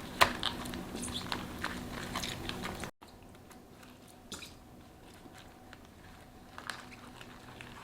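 Close crackling and crunching handling noises, many small clicks and rustles, as kimchi ingredients are handled by hand. About three seconds in the sound cuts off abruptly to a much quieter stretch with only a few faint clicks.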